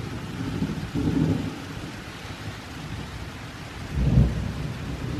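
Steady rain falling in a thunderstorm, with low rumbles of thunder about a second in and again, louder, near the end.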